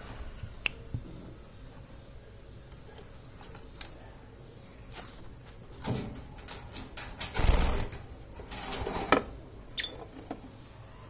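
Scattered sharp clicks and knocks, with a stretch of scraping and rubbing noise from about six to nine seconds in, loudest in the middle of that stretch.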